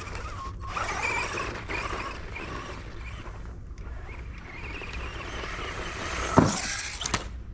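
Electric RC car motor whining as the car drives across grass, its pitch rising and falling with the throttle, then a sharp knock about six seconds in as the car hits the plastic jump ramp, and a lighter click soon after.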